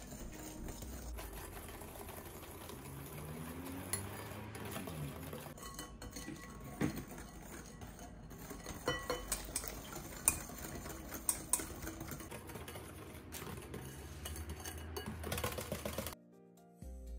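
Kitchen utensils clinking and scraping against a mixing bowl during mixing, with scattered sharp clinks over background music. The kitchen sounds stop abruptly near the end, leaving only the music.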